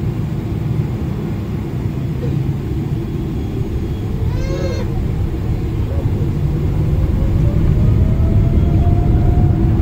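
Boeing 777 cabin noise while taxiing: a steady low rumble of the engines and rolling airframe, growing louder through the second half as a faint rising whine comes in while the engines spool up. About halfway through comes a brief high cry, like a voice.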